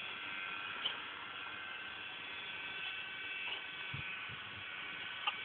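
Electric cement mixer running steadily with a buzzing hum and a whine, with a faint knock or two.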